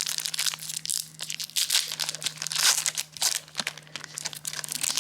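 Foil Pokémon booster pack wrapper being torn open and crinkled by hand, a dense irregular rustle with sharp crackles.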